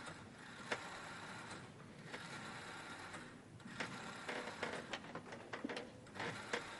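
Black rotary telephone being dialled: the dial is turned and runs back with a rapid clicking rattle, several digits one after another.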